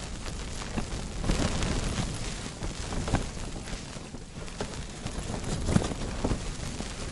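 Strong wind gusts buffeting the fabric walls of an ice-fishing tent, with a steady rush and irregular snaps and thumps of the flapping cloth.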